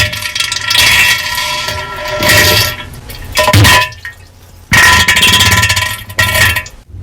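Diarrhea sound effect, heavily distorted and clipped, coming in loud uneven surges with a short lull about four seconds in.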